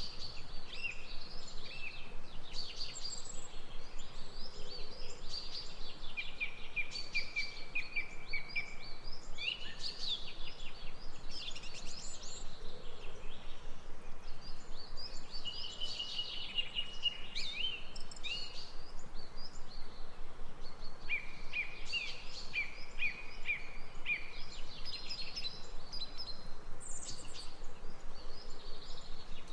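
Several birds singing and calling over one another in a dawn-chorus-like mix of rapid trills and quick chirps, over a steady faint background hiss.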